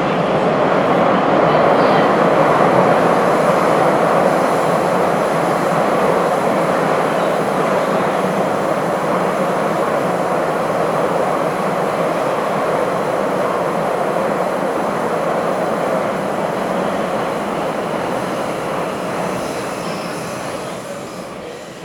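Bucharest Metro Line M1 train running through a tunnel, heard inside the carriage as a loud, steady rumble and rush of wheels on rails. It grows quieter over the last few seconds as the train slows for the next station.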